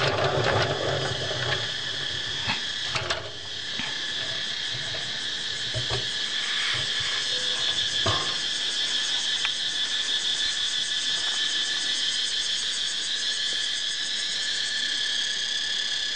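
Insects trilling steadily, a continuous high buzz that grows stronger after a few seconds. A few clicks and knocks sound around three, six and eight seconds in, as honeycomb frames are handled in a stainless steel honey extractor.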